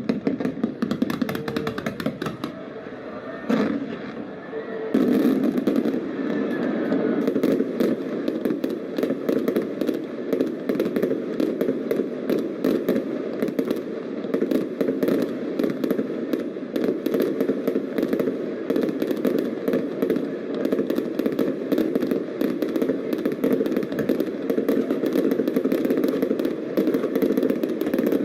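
Fireworks bursting close by: a dense, continuous crackling and popping of many shells going off at once, thickening about five seconds in.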